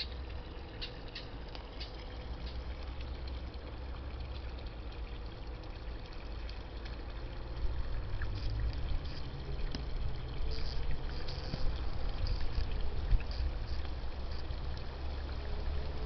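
Wind rumbling on the microphone outdoors, growing stronger about halfway through, with a few faint high chirps in the first couple of seconds.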